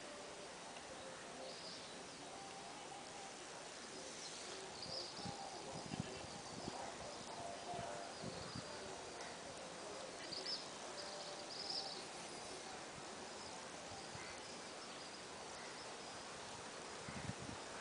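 Faint outdoor ambience: a steady background hiss with short, high bird chirps a few times and a few soft low bumps.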